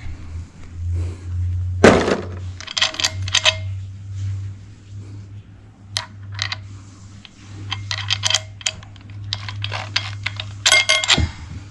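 Small metal pieces clinking and rattling against each other in three quick clusters, after a single sharp knock about two seconds in. A steady low hum runs underneath.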